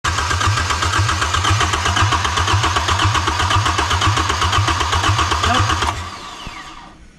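Yanmar 4JH3E four-cylinder marine diesel running on its test stand with a rapid, even beat, fading away about six seconds in.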